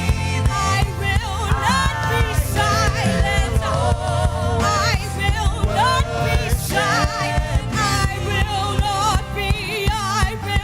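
Gospel worship music: sung vocals with vibrato and runs over steady bass and drums.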